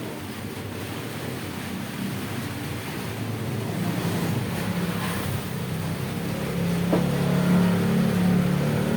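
Zacchi electric air compressor running, a steady motor hum that grows louder toward the end, with a single short click about seven seconds in.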